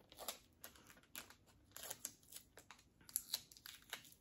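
Faint, irregular crinkling of a small plastic wrapper being handled and picked at in the hands, a string of short crackles.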